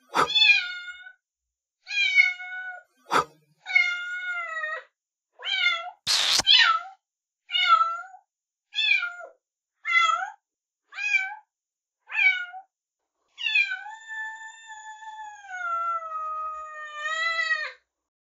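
A kitten meowing repeatedly in high-pitched calls about once a second, ending in one long drawn-out meow of about four seconds. A sharp click comes about 3 seconds in, and a short loud noise about 6 seconds in.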